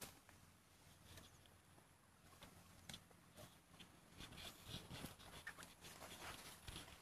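Faint scuffs, rustles and soft thuds of Asian elephants walking on grass and scraping at loose dirt, getting busier about four seconds in.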